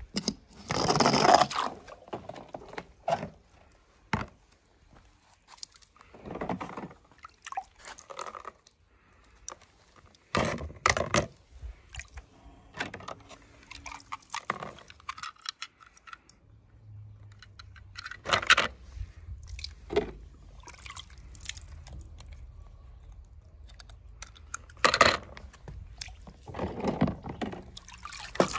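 Irregular knocks, scrapes and clatters of small hard objects being handled, a handful of louder bursts spread out with quieter gaps between, and a faint low hum coming in about halfway through.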